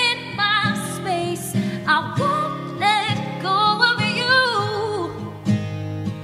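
Music: an acoustic pop ballad, a solo voice singing long, wavering notes over acoustic guitar.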